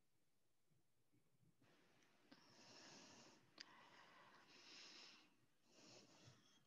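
Faint breaths close to a microphone, several soft stretches of breath noise, with a single sharp click about three and a half seconds in.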